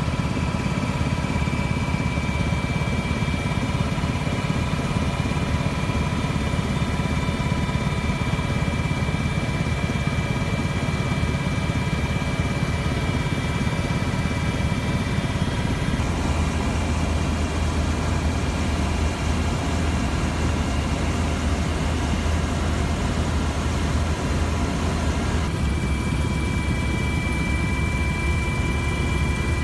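Steady drone of an aircraft's engine and propeller heard from on board, with a few thin, steady high whining tones over it; the sound shifts slightly twice.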